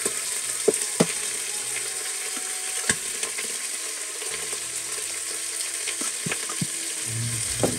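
Raw meat being spooned from a steel plate into a hot steel pot on a gas stove, sizzling steadily, with several sharp clinks of the metal spoon against the plate and pot.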